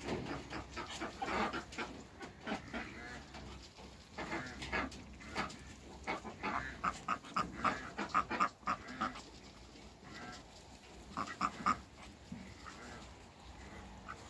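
A flock of Brahma hens clucking, short calls coming in irregular runs, busiest in the middle and again a little before the end.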